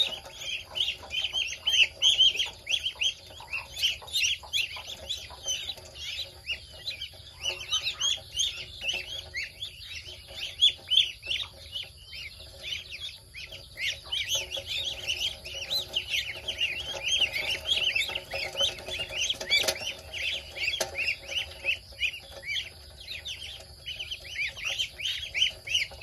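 A brood of ducklings peeping constantly, many short, high calls overlapping several times a second.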